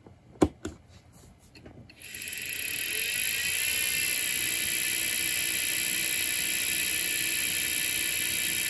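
Open Quantum ProDrive LPS 105S hard drive powering up: a couple of sharp clicks, then about two seconds in the spindle motor spins up with a rising whine that settles into a steady high whine. With it comes a scraping noise from the heads in the parking area.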